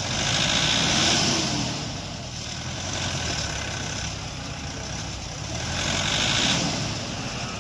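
Off-road 4x4 vehicle engine running, with two louder swells of rushing noise, about a second in and again about six seconds in.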